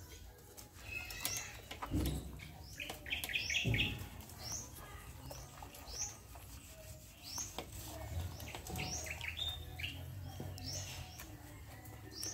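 A small bird chirping over and over, short high chirps about once a second, with a quick rapid trill about three seconds in. Two soft low thumps come around two and four seconds in.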